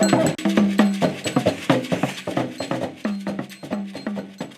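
Music with quick, regular percussion strikes over pitched notes, fading out.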